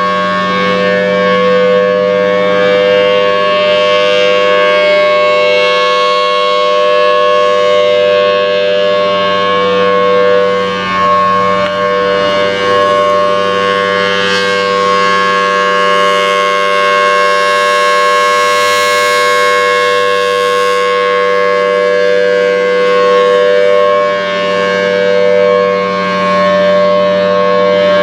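Federal Signal Thunderbolt 1000T outdoor warning siren sounding its steady alert tone: one held pitch that swells and fades slightly in loudness as the rotating horn turns.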